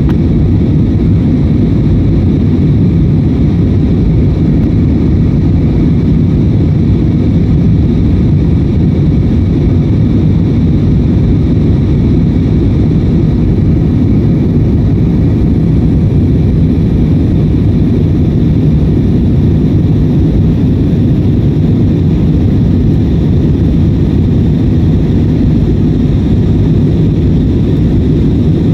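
Steady drone of jet engines and rushing air heard inside the cabin of an Airbus A320-family airliner in its climb after takeoff. The sound is deep and even, with a faint steady whine above it.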